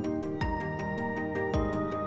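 Background music: soft held chords that change about half a second in and again near the end, over a light, quick, regular beat.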